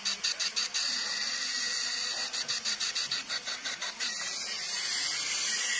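Compressed air from a leak-down tester hissing out of the open intake manifold, at times fluttering in quick pulses of about six or seven a second. The air is leaking past an intake valve that is not seating.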